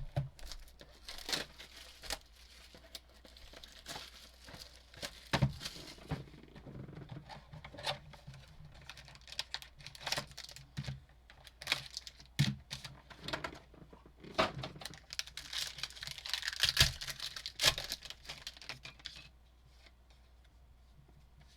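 Wrapping on a box of trading cards being torn and crinkled open, with scattered small clicks and taps of handling. It dies away near the end.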